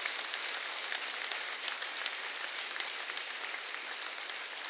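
A large audience applauding: dense, steady clapping from many hands, a sustained round of applause.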